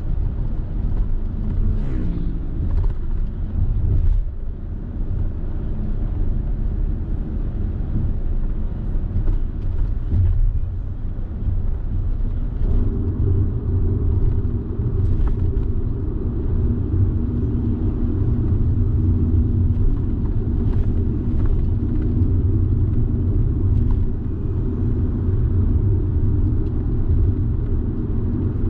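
Car being driven: a steady low rumble of engine and tyre road noise, with a few faint clicks now and then.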